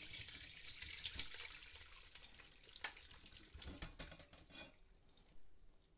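Reduced brown gravy pouring from a pot through a fine mesh sieve into a second pot, splashing most in the first two seconds and then thinning out. A few soft knocks and scrapes follow as the bones and vegetables tip into the sieve.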